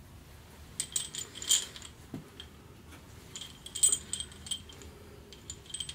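Steel head bolts clinking and jingling against one another as they are handled: two clusters of light metallic clinks, about a second in and again around the middle, with a few more near the end.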